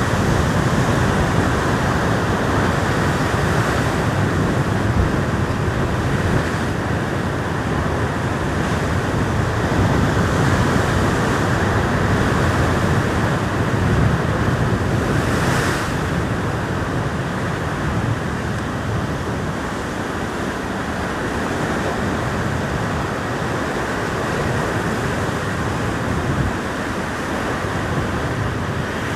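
Heavy ocean swell breaking on rock ledges: loud, continuous surf that rises and falls in slow surges, with a brief hissing surge about halfway through. Wind buffets the microphone.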